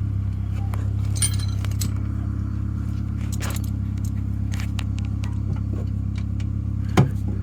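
Loose metal tools and suspension hardware clinking and chinking over a steady low engine drone, with one sharper metal knock near the end.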